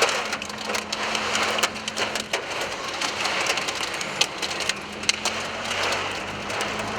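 Hail and wind-driven rain pelting a car's roof and windshield: a dense, steady patter heard from inside the car, broken by many sharp cracks of stones striking.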